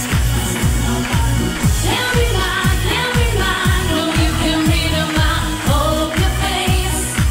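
Pop song with a woman singing over a loud dance backing track, its kick drum beating steadily about twice a second.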